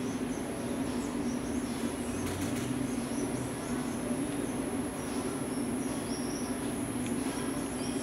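Tropical rainforest ambience: a steady high-pitched insect whine with scattered short bird chirps over it and a low steady hum underneath.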